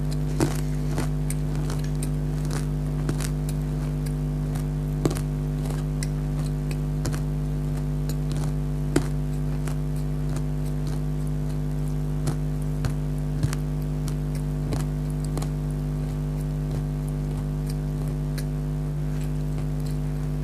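Crunchy nimko snack mix being chewed close to the microphone: sharp crunches, several in the first second or two, then only now and then. Throughout, a steady low electrical hum.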